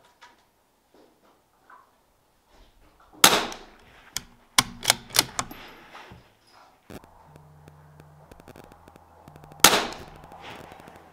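Gunshots at an outdoor shooting range: one sharp crack about three seconds in, four more in quick succession about a second later, and another loud crack near the end.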